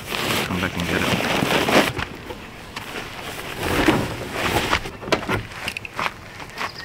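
Rustling and handling noise of camping gear being packed: nylon tent fabric crinkling and rustling, with scattered light knocks and bumps.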